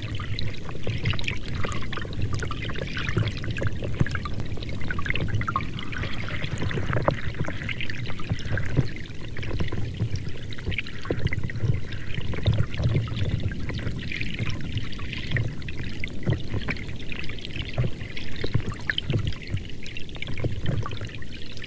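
Water running or pouring steadily, with many small splashes and drips.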